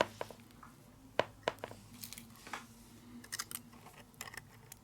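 Light, scattered clicks and small handling noises of a Cat6 cable and its aluminium foil shield being worked by hand.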